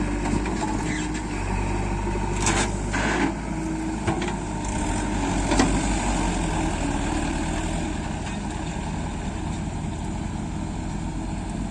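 Heavy diesel machinery engine running steadily, with a few short knocks about two and a half to three seconds in and again near six seconds.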